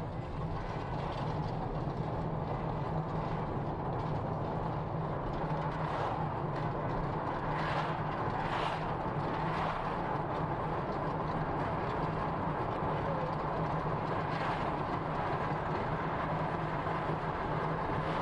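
Steady road and engine noise inside a moving car's cabin at highway speed, under a constant low hum. The hiss briefly grows louder a few times, around eight and again around fourteen seconds in.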